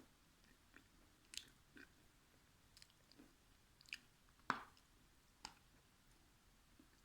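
A person chewing food close to the microphone: scattered wet mouth clicks and smacks, the loudest about four and a half seconds in, over near quiet.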